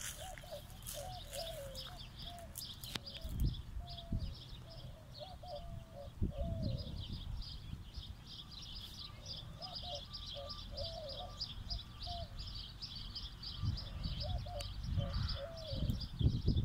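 Birdsong: a dove cooing in short phrases, three times, over steady, rapid high-pitched chirping from other birds. Occasional low rumbles run underneath.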